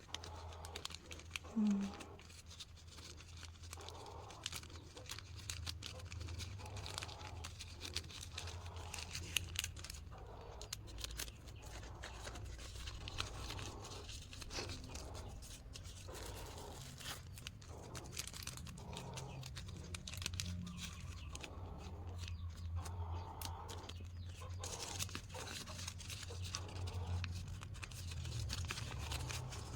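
Plastic snack packets rustling and crinkling as they are handled, with many small scattered clicks over a low steady hum.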